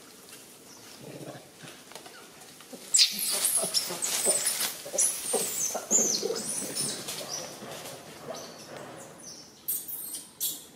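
Infant macaque crying in high-pitched, wavering squeals that start about three seconds in and tail off, the distress cries of a baby being kept from nursing by its mother. A few sharp clicks near the end.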